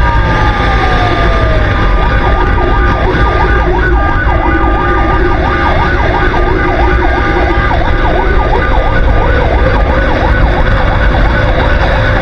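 Fire truck's electronic siren: a falling tone in the first two seconds, then a fast yelp of about three rising-and-falling sweeps a second, over a steady low rumble of the truck running.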